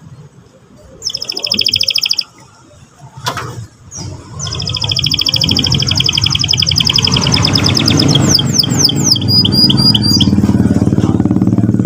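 Domestic canary singing: a short, very rapid trill about a second in, then a long rolling trill from about four seconds that breaks into a few descending sweeps and short repeated notes. Underneath, a loud low rumble like a running engine builds from about four seconds in.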